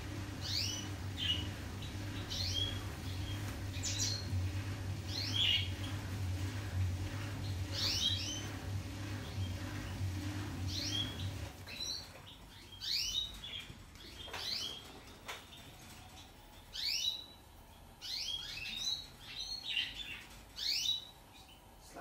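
Pet budgerigars chirping again and again in short rising calls. Under them, the washing machine's drain pump hums steadily as it empties the drum, and the hum stops about halfway through.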